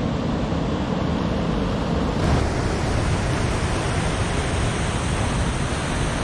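Mountain river rushing through rapids in a rock gorge: a steady noise of white water, its tone shifting a little about two seconds in.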